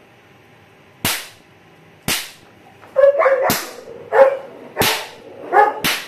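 A small hammer striking a tile floor, five sharp cracks about a second apart. From about halfway through, a dog barks several times between the strikes.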